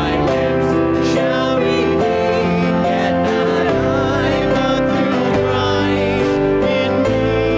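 Hymn music: voices singing over a keyboard accompaniment, steady held chords.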